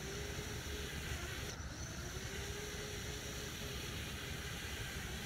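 Small racing quadcopter's brushless motors whining faintly at low throttle, the pitch of the whine wavering slightly. It sits over a steady low background hiss and rumble.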